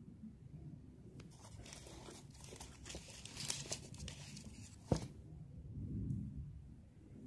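Paper and plastic tape crinkling and rustling as they are handled, with scattered small clicks, one sharp click about five seconds in, and a low muffled rumble just after it.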